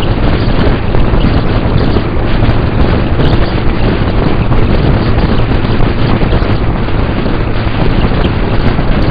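Heavy wind rushing over the microphone of a moving motorcycle at road speed, with the bike's engine running steadily underneath.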